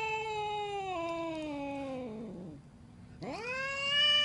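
An angry cat yowling: a long drawn-out yowl that slides down in pitch and fades out a little past halfway, then after a brief pause a second yowl that rises and holds steady.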